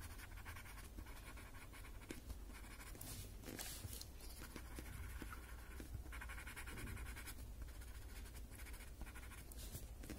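Paper blending stump (tortillon) rubbing and blending graphite on a paper drawing tile: faint, scratchy strokes repeated at an uneven pace.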